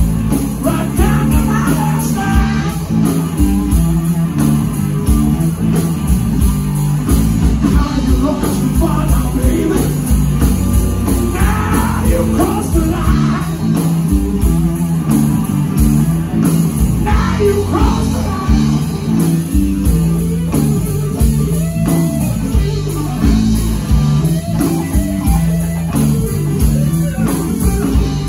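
Blues rock band playing live: electric guitar, bass guitar and drums, loud and steady throughout.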